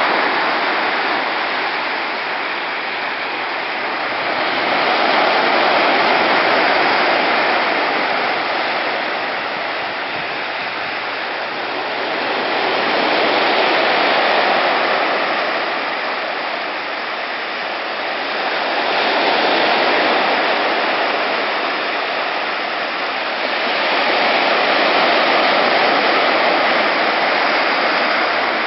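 Sea surf washing onto a beach: a steady rush of water that swells and fades as each wave breaks, about every six to eight seconds.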